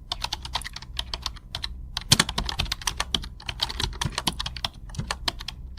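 Fast, irregular typing on a keyboard, many key clicks a second, over a low steady hum.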